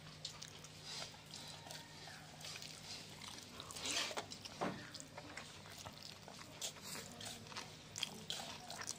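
Fingers mixing rice and dal on a brass plate, with small wet clicks and squishes and a louder rustle about halfway through, over a faint steady hum.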